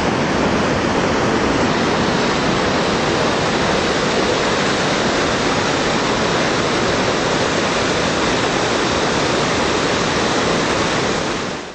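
Steady rushing of a shallow river's rapids, water flowing over rocks; it fades out near the end.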